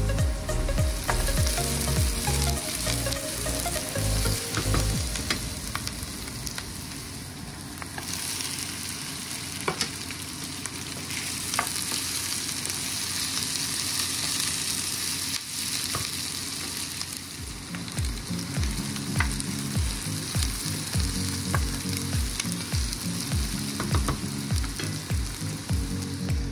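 Diced onions and sliced red hot dogs sizzling in oil in a frying pan, stirred with a wooden spoon that clicks and scrapes against the pan now and then.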